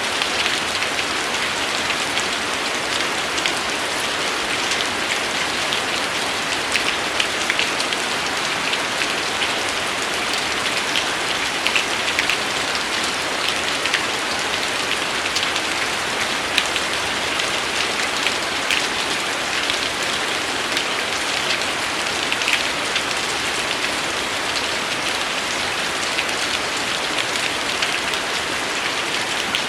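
Steady rain falling on a hard surface, a constant hiss with many distinct drop ticks scattered through it.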